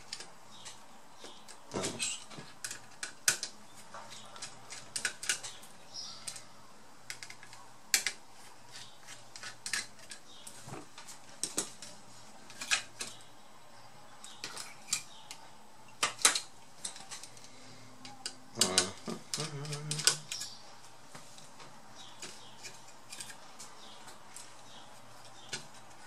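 Irregular small clicks, taps and clatter of hard parts being handled as a laptop's heatsink-and-fan cooler is unscrewed and lifted off its motherboard and the bare board is picked up.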